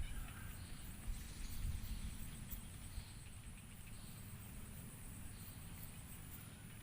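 Faint rubbing and scratching, with soft low thumps, from hands massaging a person's head and neck.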